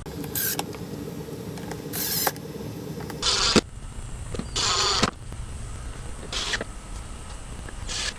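Ridgid cordless impact driver run in about six short bursts, driving screws into a plastic grille bumper plate; two bursts, a little after three and around five seconds in, are longer and louder.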